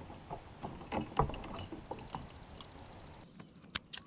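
Scattered light clicks and knocks of fishing gear being handled in a plastic fishing kayak, irregular and a fraction of a second apart.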